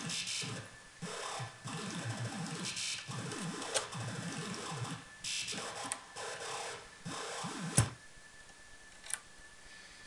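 DIY doorbell-chip synth module, sequenced by a step sequencer through a filter, playing harsh, noisy electronic bursts with sweeping pitches. About three-quarters of the way through, a loud click and the sound stops, leaving a faint steady high tone and another click a second later.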